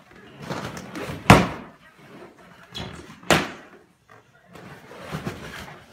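Latex helium balloons bursting under a husky's bite: two sharp bangs about two seconds apart, the loudest sounds here. Between them comes softer rustling and rubbing of the balloons as the dog paws and mouths them.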